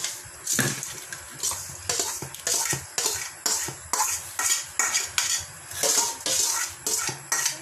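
A utensil scraping and knocking against the inside of a stainless steel mixing bowl in short repeated strokes, about two to three a second, as grated salted santol is scraped out of it.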